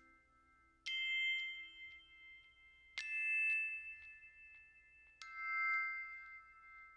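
Background music ending on three bell-like struck notes, about two seconds apart, each ringing out and slowly fading.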